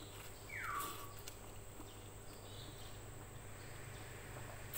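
A short slurp of noodles, falling in pitch, about half a second in, then quiet eating over a steady low hum.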